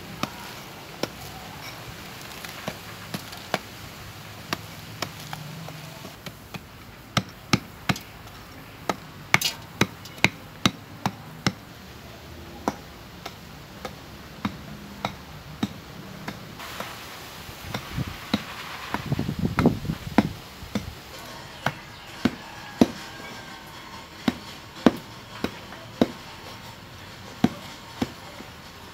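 A stick knocking and breaking lumps of dry clay in a bamboo basket: irregular sharp knocks about once a second, with a denser run of strikes and crumbling about two-thirds of the way through.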